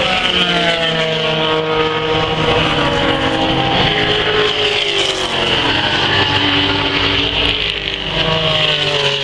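Several classic racing cars' engines running hard at high revs as the cars race past. Their pitch slides down over the first few seconds, and a fresh engine note rises about eight seconds in as more cars come through.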